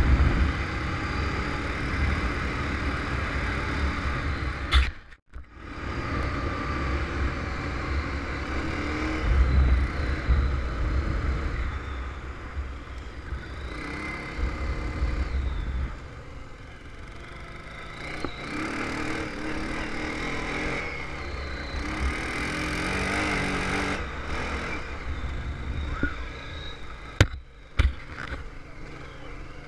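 Honda TRX500 Foreman ATV engine running as it is ridden over rough ground, its pitch rising and falling with the throttle. The sound cuts out briefly about five seconds in, turns quieter after about sixteen seconds, and a sharp knock comes near the end.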